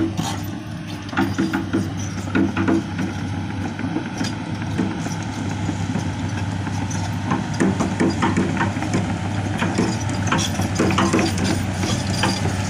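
Komatsu PC200 excavator's diesel engine running steadily, with repeated clanks and knocks throughout.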